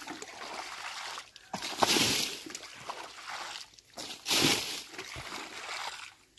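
Muddy water being scooped with a small bucket from a drained pond's plastic liner and flung out, with sloshing as the bucket dips and two louder splashes, about two seconds in and again about four and a half seconds in.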